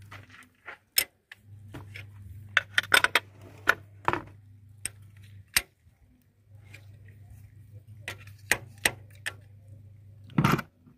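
Metal tools and parts clicking and knocking on the engine as the timing locking tools are worked loose, in irregular clusters of sharp clicks with a louder knock near the end.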